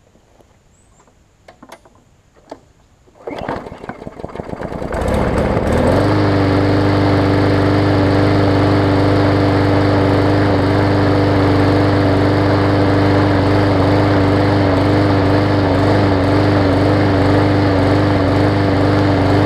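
Briggs & Stratton overhead-valve engine on a new push mower starting for the first time. After a few faint clicks it catches unevenly about three seconds in, picks up speed and settles within a couple of seconds into a steady run at an even speed.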